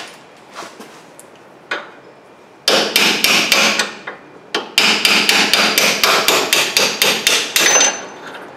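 Hammer striking a steel drift held against a stuck bolt in a car's rear brake assembly to drive it out. The blows are sharp metal-on-metal strikes in two quick runs of about four to five a second, starting a few seconds in after a few light taps.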